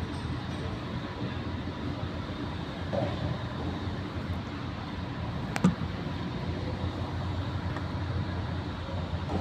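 Toyota Hilux's turbocharged engine running with a steady rumble, in a truck whose turbocharger the owner calls bad. A single sharp click comes about five and a half seconds in.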